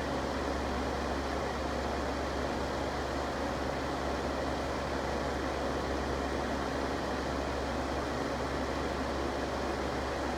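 Electric fan running steadily: a constant rush of air over a low hum.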